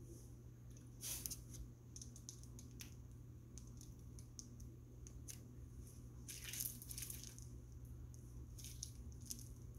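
Faint crinkling and rustling of a plastic bag of frosting being squeezed to pipe it onto cupcakes. It comes in scattered short bursts, the loudest about six and a half seconds in, over a low steady hum.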